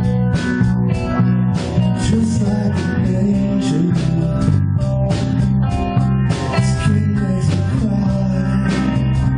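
Live band playing through a PA: electric guitars and bass over a drum kit keeping a steady beat.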